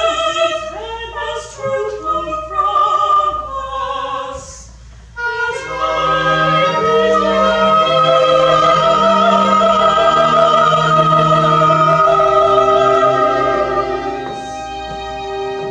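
Two women singing an opera duet with accompaniment: a run of quick, shifting notes, then from about five seconds in both hold long, loud notes together, softening near the end.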